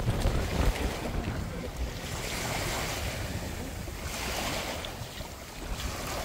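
Wind buffeting the microphone, with small waves washing softly onto the sand a couple of times.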